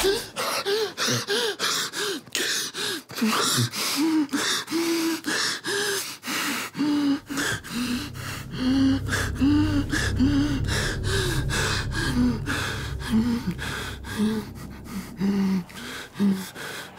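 A man gasping in rapid, panicked breaths, short voiced gasps about two a second, with a low rumble underneath through the middle.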